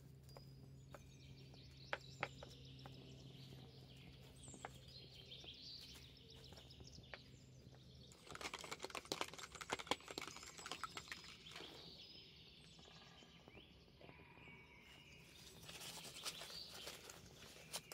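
Faint food-preparation handling: small clicks and taps on a cutting board, then plastic wrapping crinkling in two bouts, midway and near the end, with faint bird chirps and a low hum that stops about halfway through.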